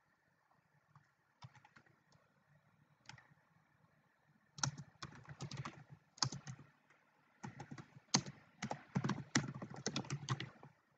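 Typing on a computer keyboard: a few scattered key presses in the first few seconds, then fast runs of keystrokes from about halfway, broken by one short pause.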